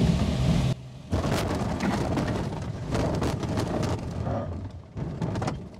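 Motorglider rolling out on a rough grass field with its engine stopped: a steady rumble from the wheel and airframe with many knocks and bumps, fading as it slows near the end.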